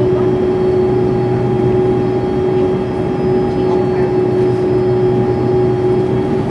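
Airbus A330-200 turbofan engines running steadily, heard inside the passenger cabin as the airliner rolls slowly on the runway: a constant whine over a steady rumble.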